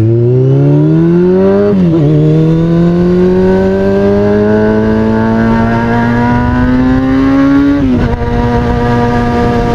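2003 Kawasaki ZX-6R's inline-four running through an aftermarket MotoGP-style exhaust, accelerating under way. The revs rise, drop at an upshift about two seconds in, then climb slowly through a long pull. They fall again near the end and the bike settles to a steady cruise.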